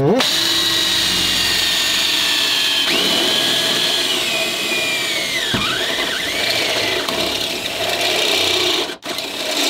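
Cordless drill running a step drill bit into a car's sheet-metal trunk floor, with a high-pitched whine that sags in pitch and dips sharply about five and a half seconds in. It stops briefly near the end, then starts again.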